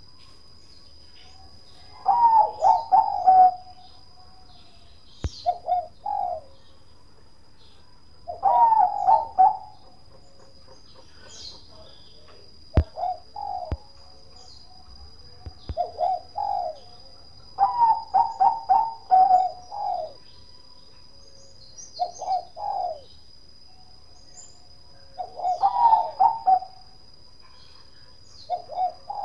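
Zebra dove (perkutut, Bangkok line) singing: phrases of quick rolling coos repeated about every three seconds. A faint steady high whine and small high chirps sit underneath.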